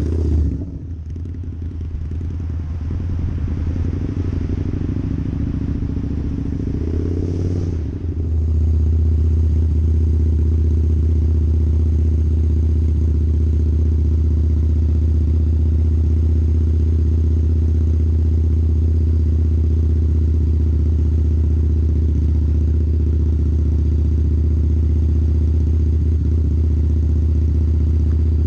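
Harley-Davidson V-Rod's liquid-cooled V-twin with a Vance & Hines exhaust. It passes close by right at the start, then is heard from on the bike. It runs unevenly at first, then from about eight seconds in settles into a steady, even cruising note.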